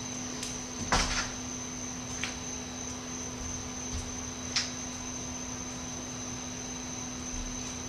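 A few sharp taps and knocks from someone moving about on a concrete walkway, the loudest about a second in and another near the middle, over a steady electrical hum with a high whine.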